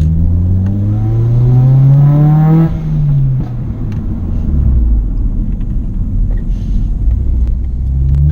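Honda Civic Type R EP3's four-cylinder engine pulling hard under acceleration, the revs climbing for nearly three seconds and then dropping at a gear change. Steady engine and road rumble follows, and near the end the revs start climbing again.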